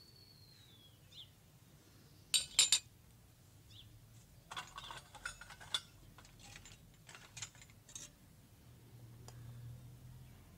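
Miniature stainless steel utensils clinking against a small steel bowl: a few sharp clinks about two seconds in, then a run of lighter clinks and scrapes as the cut salad is handled and stirred. A faint bird chirps near the start.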